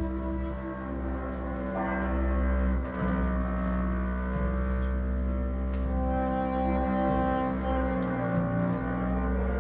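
Free-jazz trio playing live: double bass and saxophone hold long, overlapping notes over a deep low drone, with hardly any drumming.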